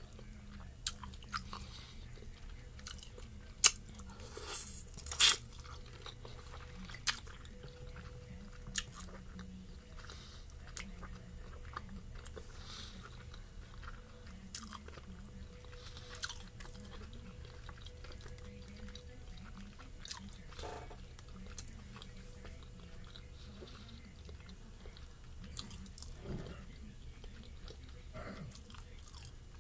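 Close-up chewing of pan-fried chicken dumplings, with wet mouth smacks and clicks. The loudest smacks come a few seconds in, and fainter ones are scattered through the rest.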